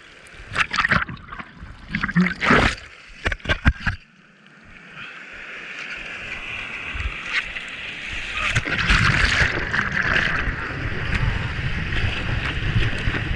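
Surf water splashing and rushing against a GoPro in its waterproof housing: a run of sharp splashes in the first four seconds, a brief lull, then a steady rush of whitewater that builds from about four seconds in as the surfboard moves through broken waves.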